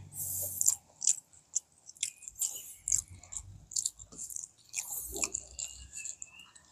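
Close-up eating sounds: chewing with mouth smacks, and short, irregular crackles as fingers pick apart crispy deep-fried fish and rice.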